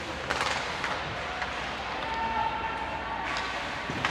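Ice hockey game play: sharp clacks and knocks of sticks, puck and boards over a steady rink hum, with a faint held call in the middle.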